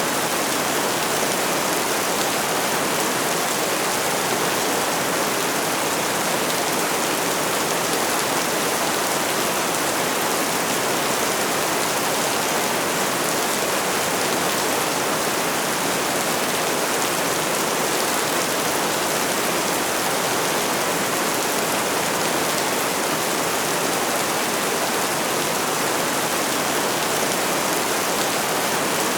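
Steady rain falling, an even hiss with no distinct drops, pauses or changes.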